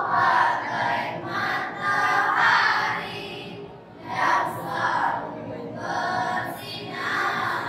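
A girls' nasyid group singing together without instruments, in sung phrases with a short break about four seconds in.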